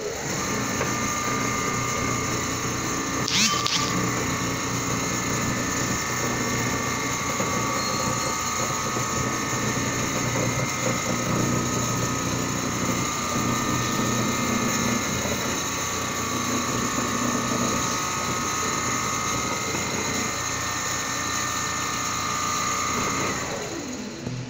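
Richpeace large-format CNC sewing machine stitching a thick furniture panel, running steadily with a mechanical whine as its gantry carries the sewing head across the work. A brief sharper noise comes about three seconds in, and the running stops shortly before the end.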